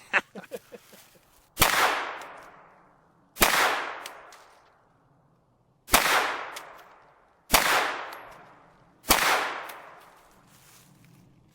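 Hi-Point 995 9mm carbine firing five single shots at an unhurried pace, one every one and a half to two and a half seconds, each echoing and dying away over a second or more.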